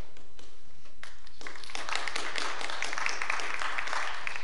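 Audience applauding, starting about a second and a half in: a dense patter of many hands clapping.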